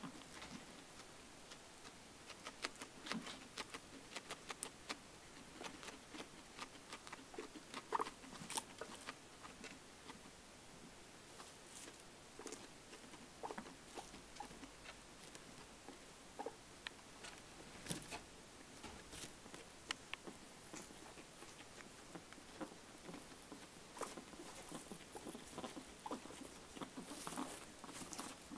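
A pet eating, with faint, irregular crunching and clicking noises that the owner finds strange. A few of the clicks are louder.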